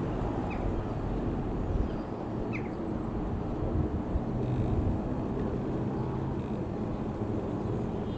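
Comco Ikarus C42 FB100 microlight flying overhead, its Rotax 912 four-cylinder engine and propeller giving a steady low drone.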